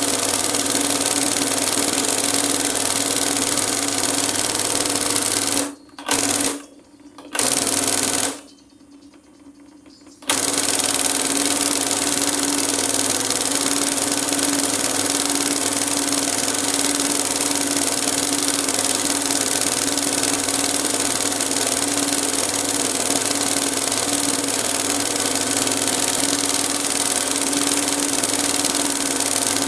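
Industrial embroidery sewing machine running at a steady speed as fabric is hand-guided under the needle. It gives a constant hum with a high-speed stitching rattle, and stops abruptly and restarts three times between about six and ten seconds in.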